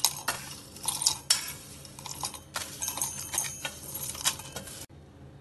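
Dry toasted whole spices and cashews poured from a plate into a stainless-steel mixer-grinder jar, rattling and clinking against the metal in a quick run of small clicks that stops suddenly near the end.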